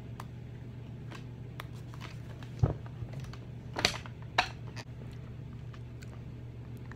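Mouth sounds of someone working a hot candy: scattered small clicks and smacks, with a thump about two and a half seconds in, over a steady low hum.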